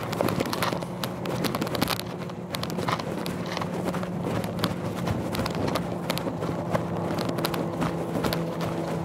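Irregular clicks and knocks, like steps and handling on loose rocks, over a steady low hum.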